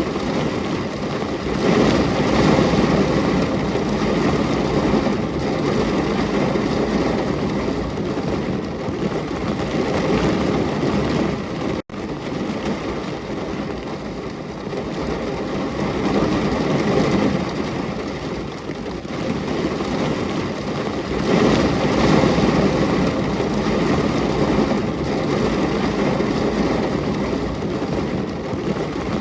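Steady heavy rain, a dense hiss that swells and eases every few seconds, with a sudden split-second dropout about twelve seconds in.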